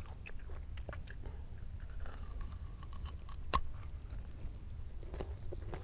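Fresh guava being chewed, with small wet crunching clicks, and one sharp crunch as a new bite is taken about three and a half seconds in.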